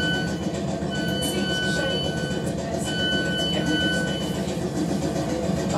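Class 455 electric train's door warning beeping in long, evenly spaced tones about two seconds apart, stopping about four seconds in, over the steady rumble of the train.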